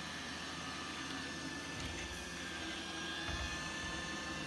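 iRobot Roomba 900-series robot vacuum running with a steady whir, and a couple of dull low thumps about two and three seconds in.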